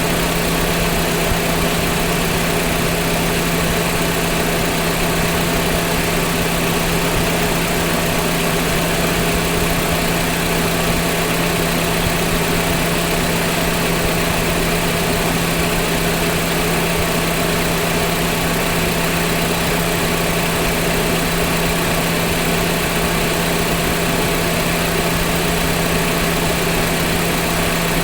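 Car engine idling steadily, with a constant hum.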